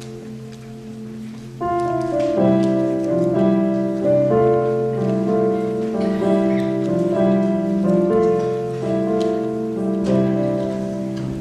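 Instrumental music with slow, held notes in several parts, like a gentle melody over chords. It grows clearly louder about a second and a half in.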